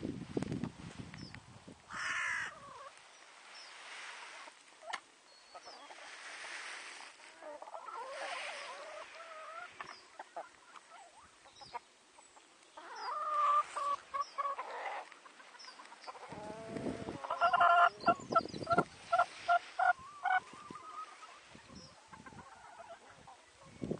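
A flock of chickens clucking and calling while foraging on grass, with scattered single calls and, near the end, a quick run of about eight short, evenly spaced clucks.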